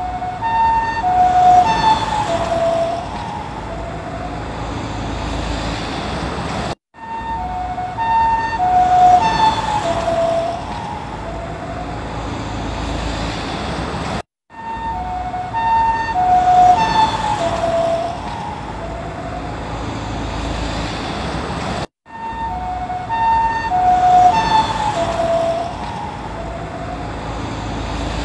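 Japanese ambulance's two-tone siren passing by, its alternating high and low notes dropping in pitch as it goes past (the Doppler effect) and then fading under road noise. The same short pass repeats about every seven and a half seconds, broken each time by a brief gap of silence.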